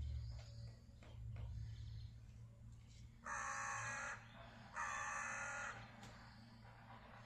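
Crow cawing twice, two long caws about a second and a half apart, starting a little over three seconds in.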